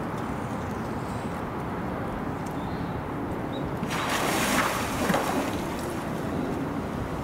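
Polar bear splashing in its pool: a burst of splashing water about four seconds in, lasting just over a second, over a steady rushing noise.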